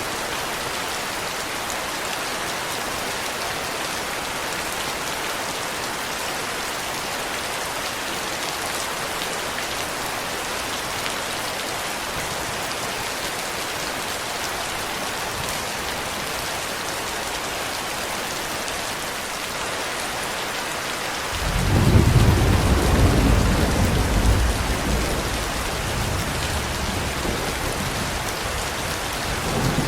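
Steady heavy rainfall hissing throughout; about three-quarters of the way in, a loud rolling rumble of thunder swells up and slowly fades, and another roll of thunder starts at the very end.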